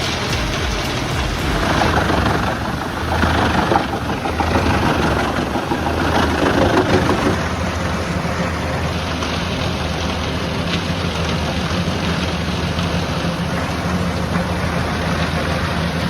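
Engine of heavy machinery running steadily, with a dense working noise that grows rougher between about two and seven seconds in.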